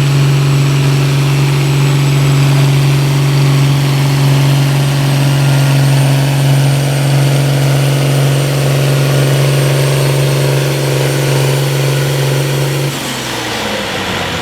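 Farm tractor engine running at a steady, wide-open throttle under full load while pulling the weight sled. Near the end the note drops as the throttle is let off and the run ends.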